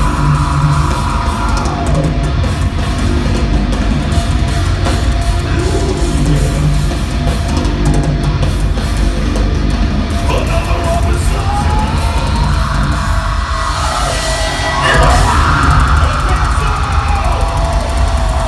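Heavy metal band playing live: distorted guitars and a drum kit, with a singer's yelled vocals over them.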